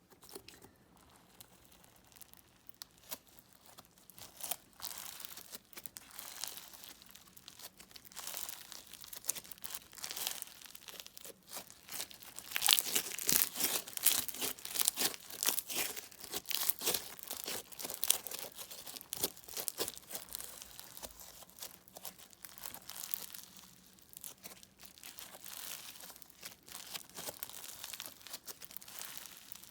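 Crunchy bead-filled slime being squeezed and kneaded by hand, the beads giving off dense crackling crunches. It starts softly, is loudest and busiest in the middle, and eases off near the end.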